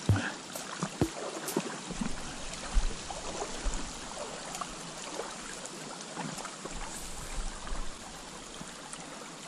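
Water of a shallow stony river riffle trickling and rippling around an inflatable PVC boat. There are a few knocks near the start and low rumbles in the middle as the boat drifts over the shallows.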